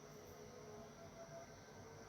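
Near silence with a faint steady hum: a natural pause in the grasshopper calling.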